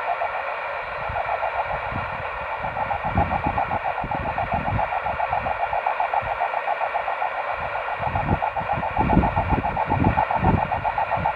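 A microwave radio signal received by rain scatter off a cloud, heard through the receiver as a rough, rapidly fluttering tone: the buzzy 'auroral sound' that signals bounced off rain clouds take on. Irregular low thumps run underneath it and grow stronger in the second half.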